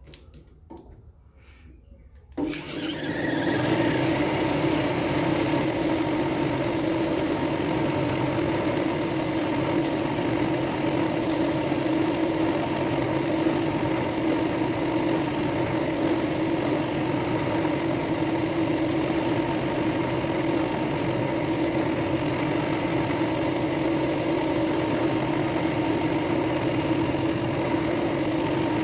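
Drill press switched on about two seconds in, then running steadily with a sanding drum in its chuck, a steady hum with a hiss over it, as it sands out the inside of a dark wood and brass ring blank.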